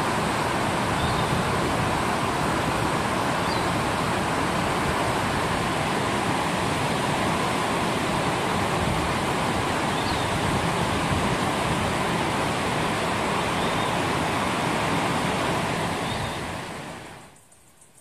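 Steady rushing of stream water, with a few faint high chirps over it. The rushing fades out about seventeen seconds in, leaving faint, fast, regular insect trilling.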